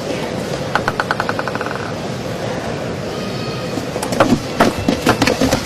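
Arena crowd murmur with a quick run of table tennis ball bounces, about ten clicks a second, about a second in. From about four seconds in a rally starts: sharp, irregular clicks of the celluloid ball striking the paddles and the table.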